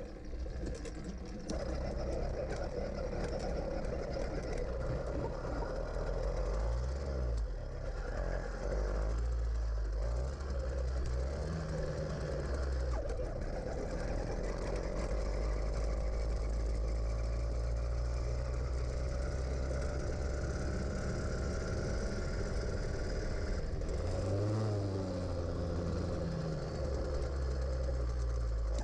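50cc two-stroke engine of a motorized bicycle conversion kit running under way. It gets louder about a second and a half in, then its pitch climbs and falls several times as it revs up and eases off.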